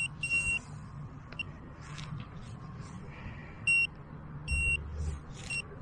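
Fisher F75 metal detector giving short, high-pitched target beeps, about five at irregular intervals, as its search coil is swept over a target. One beep near the start is longer than the others.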